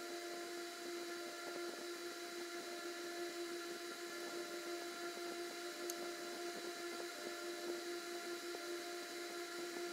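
Steady electric hum of a small motor: one constant low tone with fainter higher overtones over a light hiss.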